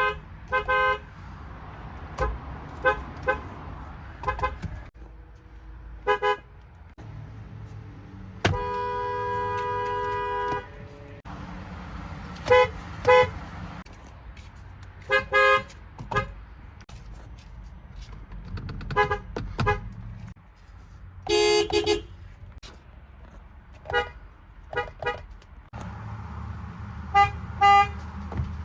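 Horns of a string of different cars sounding one after another, mostly short single or double toots of varied pitch. About nine seconds in, one horn is held steadily for about two seconds.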